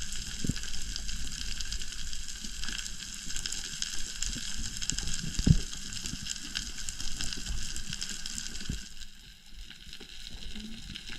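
Underwater reef ambience heard through an underwater camera: a steady crackling hiss typical of snapping shrimp, with a few dull low knocks, the loudest about five and a half seconds in.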